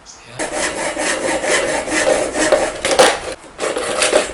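A length of hose being cut with rapid back-and-forth rasping strokes, pausing briefly about three and a half seconds in.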